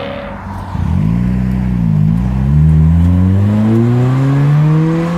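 A car engine accelerating hard: the revs jump up about a second in, dip at a gear change about two seconds in, then climb steadily in the next gear before falling off at the end.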